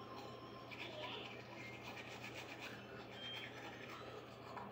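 Manual toothbrush scrubbing teeth: a faint, quick back-and-forth scratching.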